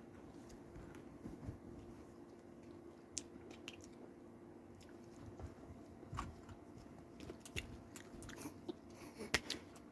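Faint chewing and biting on Toxic Waste sour hard candy, with scattered small mouth clicks and crunches, a few sharper ones near the end, over a faint steady low hum.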